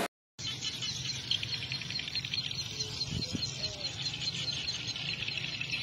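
Many swiftlets chirping together: a dense, steady stream of rapid high twitters.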